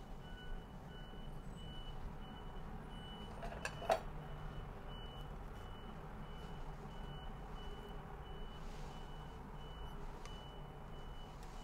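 Faint high-pitched beeping that repeats on and off at an uneven pace over a low steady hum, with one sharp clink about four seconds in.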